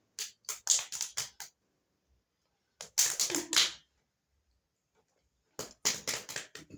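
Short, sharp cracks or slaps in three quick runs of a handful each: one starting just after the start, one near the middle and one near the end, with quiet between.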